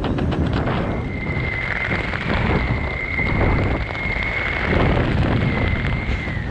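Wind buffeting the helmet camera's microphone while flying under an open parachute canopy, a loud rough rush. A steady high whistle runs over it from about a second in, dipping slightly in pitch at the end.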